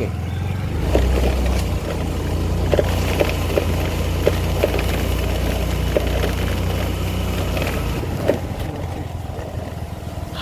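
Motorcycle engine running steadily at low speed on a rough mud track, with several short knocks and clatters along the way.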